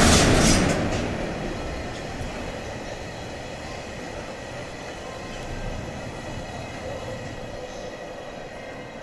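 A freight train of empty Taki tank wagons rolling past at speed, its wheels running on the rails with a steady rolling noise. The loudest moment is a rush of noise in the first second.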